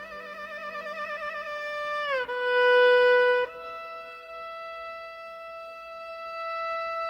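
Slow, meditative instrumental music with a single sustained melody line: a held note with vibrato slides down in pitch, then a long, steady higher note is held.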